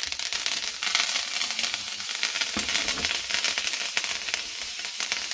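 Steak searing in butter in a hot stainless-steel frying pan, with garlic and thyme: a steady sizzle pricked by constant small crackles and spits.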